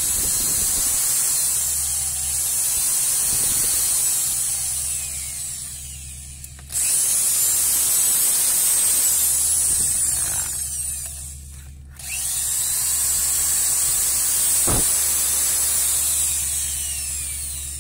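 Corded electric drill run three times in about five-second bursts, each time spinning down after the trigger is let go. It is powered from the just-repaired 1000-watt inverter as a load test.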